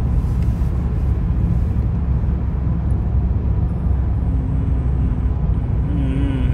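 Steady low rumble of tyre and engine noise inside a car's cabin while it drives along a motorway.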